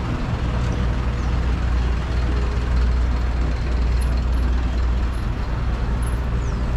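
Road traffic driving past on a city street: a steady low engine rumble from a truck and a van, swelling a little around the middle.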